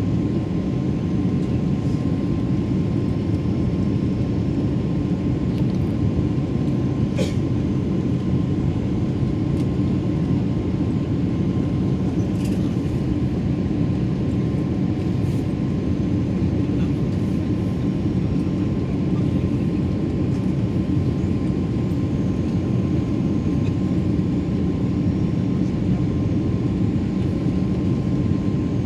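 Steady cabin drone of an Airbus A330-343 in flight, heard from a window seat: its Rolls-Royce Trent 700 engines and the airflow over the fuselage make a deep, even noise with a faint steady hum above it. A brief click sounds about 7 seconds in.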